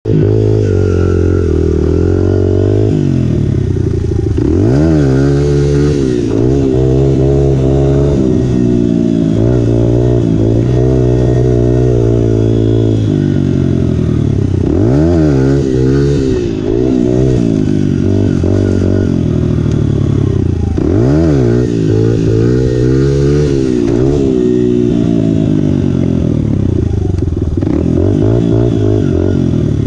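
Honda 100 dirt bike engine running under way, its pitch holding steady for stretches and several times rising and falling as the throttle is opened and eased off.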